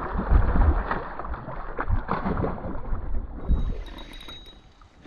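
Northern pike splashing and thrashing at the surface beside a canoe as it is let go, a run of sharp splashes over a low rumble that fades about three and a half seconds in. Faint high clicking follows near the end.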